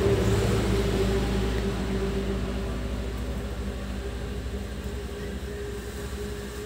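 A steady low machine hum with a droning tone, slowly fading.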